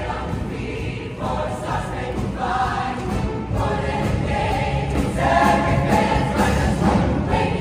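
Large mixed show choir singing in short phrases, getting louder about five seconds in.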